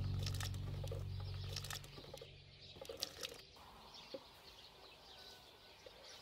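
Low background-music notes fading out over the first two seconds, then quiet outdoor ambience with faint bird chirps and a few soft clicks.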